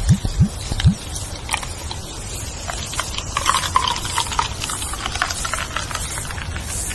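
Leaves rustling steadily in the wind, with a few loud low thuds in the first second. Birds chirp in a quick series of short notes around the middle.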